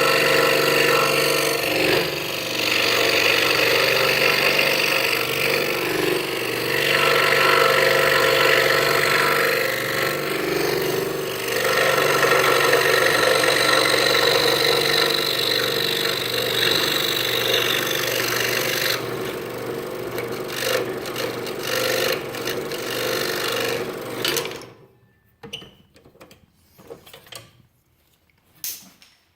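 Scroll saw running, its blade cutting through half-inch pine, the sound rising and easing as the cut goes on. The saw shuts off abruptly a few seconds before the end, leaving a few light clicks of handling.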